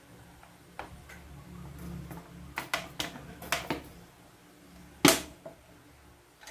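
Bottles clicking and knocking as they are picked up and set down among others on a tiled countertop: a run of light clicks, then a louder knock about five seconds in.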